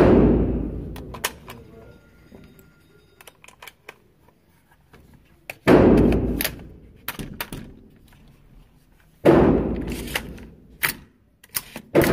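AR-15-style rifle firing single shots several seconds apart, four in all, each ringing out in a long echo off the walls of an indoor range. Lighter clicks and knocks fall between the shots.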